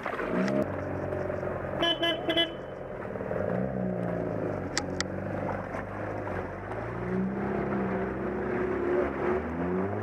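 Off-road 4x4's engine revving, its pitch rising and falling under throttle, with a car horn giving a few short toots about two seconds in.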